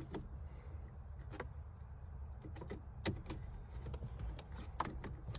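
Scattered faint clicks and taps of plastic steering-column trim and the radio-control switch and plug being handled and fitted.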